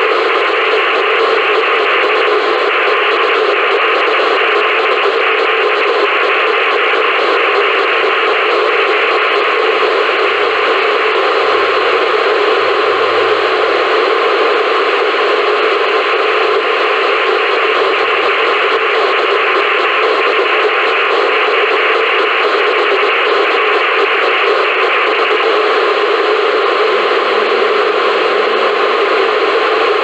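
Open-squelch FM hiss from an Icom IC-2730 VHF receiver on the Diwata-2 (PO-101) amateur satellite downlink, the hiss varying in strength as the satellite's carrier switches on and off with its Morse code (CW) beacon.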